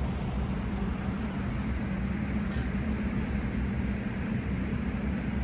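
A steady low engine hum with a constant tone and a rumble beneath it.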